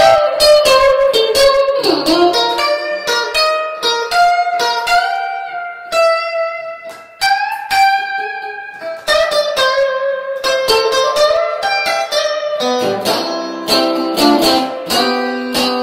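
Electric guitar, a Guyatone Stratocaster played on the centre-and-rear pickup half-tone position, through a Guyatone FLIP 300FC tube hybrid amp on its normal channel with reverb. A line of picked single notes, with a note bent down about two seconds in, turning to fuller chords with lower notes near the end.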